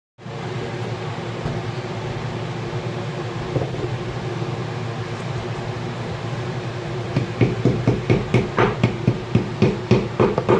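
IFB washing machine running with a steady low hum. From about two-thirds of the way through, it gives regular louder pulses about twice a second as the drum turns and tumbles the load.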